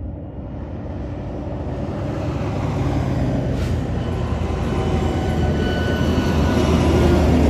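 Jet noise from a B-52H Stratofortress's eight TF33 turbofan engines at takeoff power as it climbs out, a deep rumble growing steadily louder toward the end, mixed with heavy trucks driving past on the highway.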